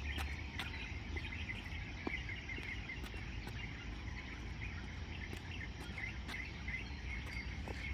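Evening outdoor ambience of insects and birds chirping, with dense high chirps throughout over a steady low rumble.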